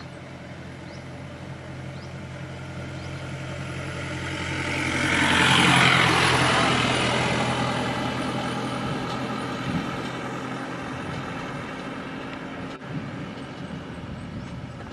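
Road vehicle passing close by: its engine and tyre noise swells to a peak about halfway through and then slowly fades, over a steady low engine hum.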